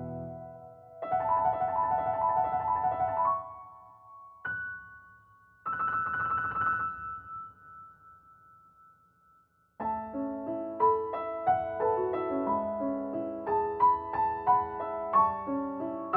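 Background piano music: a short phrase, a single note and a held chord that dies away almost to silence, then a flowing run of notes starting about ten seconds in.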